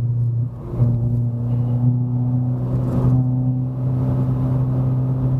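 Renault Sandero RS's 2.0-litre four-cylinder engine and exhaust, running with the final silencer removed, droning steadily under light throttle while climbing. The sound dips briefly about half a second in, then holds even.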